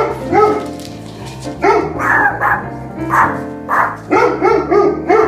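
A dog barking repeatedly, about eight short barks in bunches of two or three, over background music.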